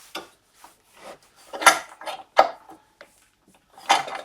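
Metal clamp of a Bosch PBD 40 bench drill being handled and fitted, giving about four sharp metallic clanks with smaller clicks between. One clank, a little past the middle, rings briefly.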